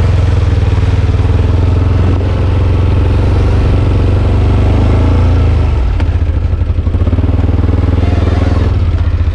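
Four-wheeler ATV engine running while riding, a loud steady hum; about six seconds in the engine note drops and turns uneven as it eases off.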